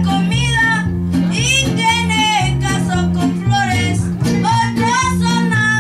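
A boy singing a Mexican song into a microphone, his high voice carried over the PA, with guitar accompaniment and a steady bass line underneath.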